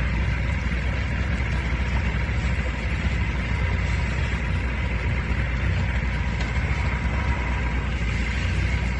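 Boat engine running steadily at trolling speed, a constant low rumble with a faint steady whine above it.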